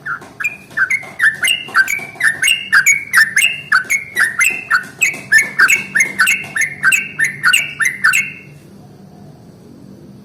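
Yellow-vented bulbul (trucukan) singing a long rapid run of bubbly, swooping notes, about three a second, which stops abruptly about eight seconds in. A faint low hum runs underneath.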